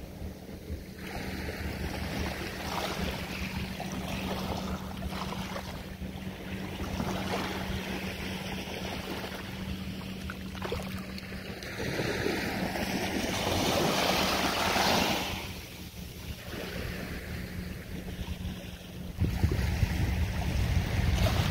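Sea water washing and lapping, with wind buffeting the microphone in gusts that are heaviest near the end. A faint steady low hum sits underneath.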